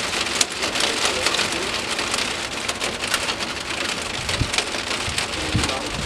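Heavy rain falling steadily, with many sharp, close drop hits in a dense hiss. A few short low thumps come near the end.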